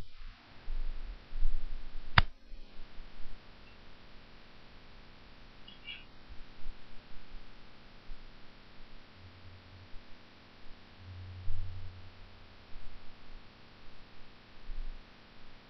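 Faint handling noise as a DVD drive is turned over in the hands, with soft bumps and one sharp click about two seconds in.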